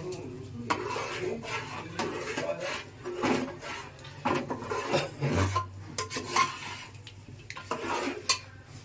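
Metal spoon stirring paneer gravy in an aluminium pot, scraping and clinking against the pot's sides and bottom in irregular strokes.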